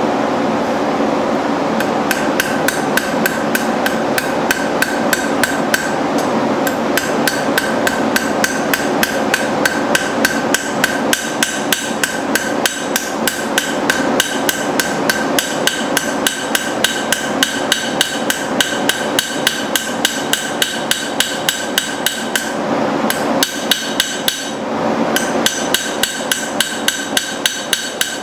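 Small hammer tapping a steel horseshoe on an anvil in a quick, even run of light blows, each one ringing. The blows start about two seconds in and break off briefly twice near the end. A steady shop hum runs underneath.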